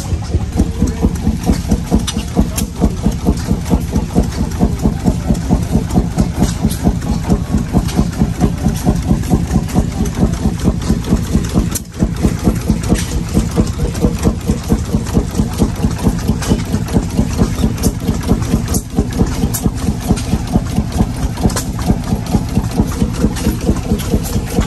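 Antique stationary flywheel gas engines running, with a steady, even exhaust beat of about three beats a second.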